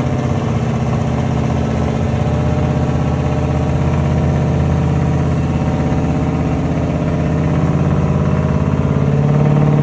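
Off-road tow truck's engine working under load as the truck crawls up a steep rock chute, running steadily and growing a little louder near the end.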